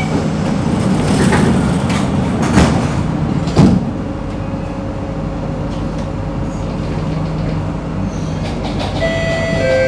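Singapore MRT train doors sliding shut and closing with a sharp knock about three and a half seconds in, followed by the train's steady running rumble as it pulls out. Steady electronic tones come in near the end.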